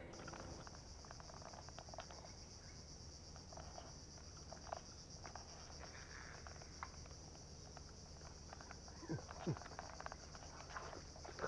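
A steady, high-pitched insect chorus of crickets or cicadas, with faint scattered clicks and, about nine seconds in, two short sliding squeaks.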